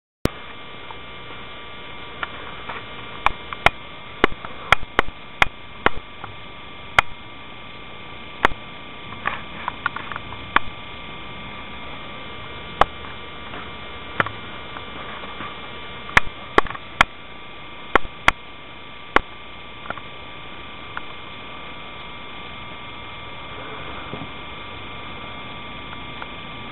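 Steady electrical hum with a few fixed high whining tones, broken by about twenty sharp digital clicks, most of them in the first two-thirds.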